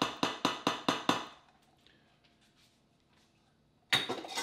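Wire whisk clinking against a stainless steel mixing bowl, about four strokes a second, as cornstarch is stirred into seasoned flour; the strokes stop about a second and a half in. A short clatter comes near the end.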